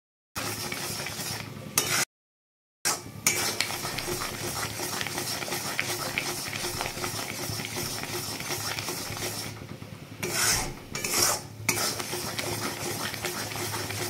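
A metal spatula stirring and scraping thick jaggery syrup around a metal pan as the syrup cooks down towards the setting stage. The sound drops out twice briefly in the first three seconds, and there are a couple of louder scrapes near the end.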